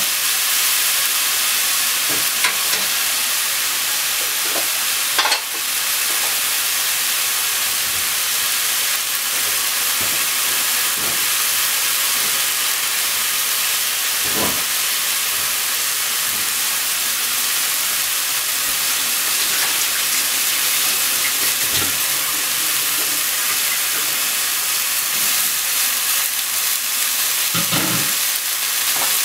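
Shiitake and enoki mushrooms sizzling steadily in oil in a nonstick frying pan, with a few brief knocks as the pieces are turned and added. A heavier clatter comes near the end.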